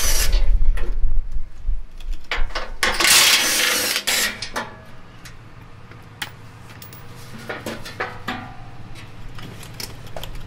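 Milwaukee M12 Fuel cordless 3/8-inch electric ratchet running in two bursts, at the start and again about three to four seconds in, backing out the 12 mm bolts of a factory under-engine shield. After that come a few light clicks and knocks as the plastic shield is handled.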